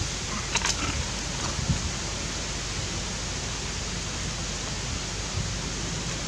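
Steady, even hiss of outdoor background noise, with a few faint soft rustles in the first two seconds.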